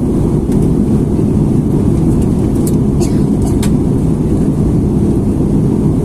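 Steady low rumble of a jet airliner heard inside the cabin at a window seat over the wing: engine and airflow noise in flight. A few faint high ticks come in the middle.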